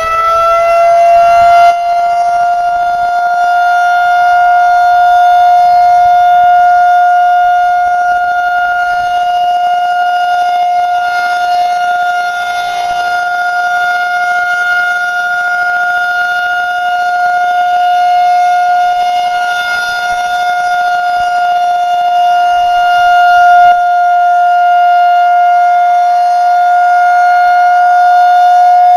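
Federal Signal 2001-130 electromechanical outdoor warning siren sounding its steady alert tone for a siren test. The pitch finishes winding up over about the first second, then holds one steady tone. The level swells and eases slightly as the head rotates.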